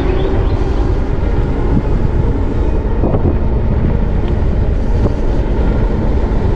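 Wind rumbling on the microphone with tyre and road noise from a Himiway C5 electric motorbike riding along; a steady low rumble throughout.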